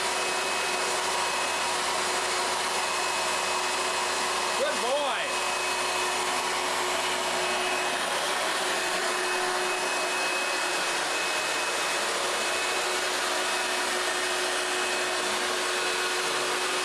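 Steady, loud whooshing of a small electric motor blowing air, like a vacuum cleaner or blower, with a faint steady hum under it; it cuts off suddenly at the end.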